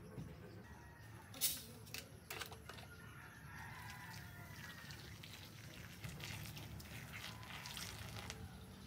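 A chicken clucking in the background, with a few sharp clicks, the loudest about one and a half seconds in. In the second half, a faint hiss of liquid being poured from a bottle over clams in a metal wok.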